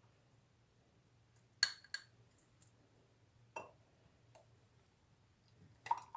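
Glassware clinking faintly as the tea is served: about four light clinks and taps, two close together about one and a half seconds in, one in the middle and one near the end.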